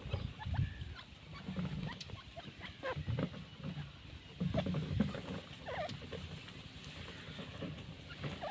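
Grey francolins foraging at close range: scattered short, soft squeaky chirps, a few rising in pitch, over light pecking and scratching clicks on dry ground, with low muffled rumbles now and then.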